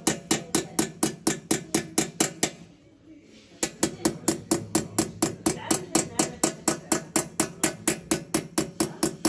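Small hammer tapping a steel chisel to engrave a brass tray resting on a steel stake: quick, even metallic taps about five a second, with a pause of about a second partway through before the tapping resumes.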